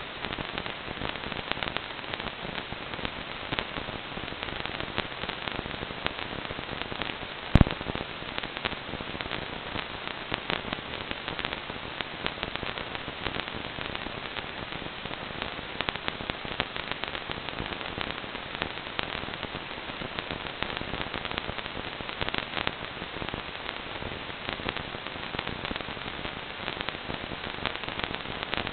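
Steady crackling static hiss from an analog FPV video receiver picking up no signal, dense with small clicks, with one loud sharp pop about seven and a half seconds in.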